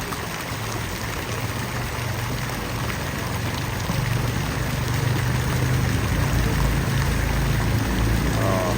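Public water fountain splashing steadily, with a low rumble underneath. There is a brief short call near the end.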